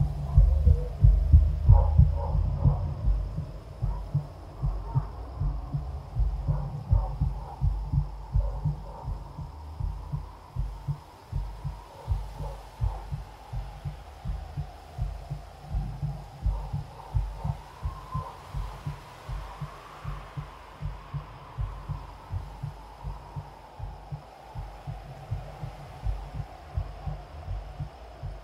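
Low rhythmic thumping, about two to three beats a second, louder in the first few seconds and then steadier, over a faint wavering hum.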